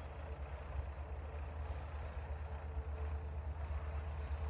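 GM diesel locomotive running at a distance as it approaches: a steady low rumble with a faint steady hum over it.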